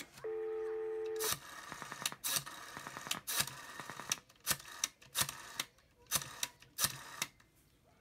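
A steady telephone dial tone for about a second, cut off as dialing begins on a Western Electric rotary desk telephone. Then the rotary dial is pulled round and let go several times, each digit a short run of clicks and whirring, stopping about seven seconds in.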